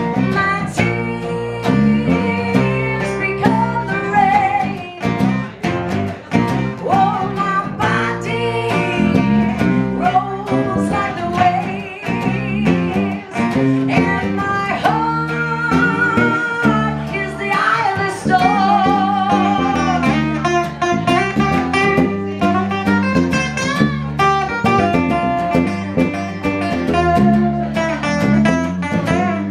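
Live acoustic band performance: strummed acoustic guitar backing a woman singing with a wavering vibrato on held notes, with steady percussive hits throughout.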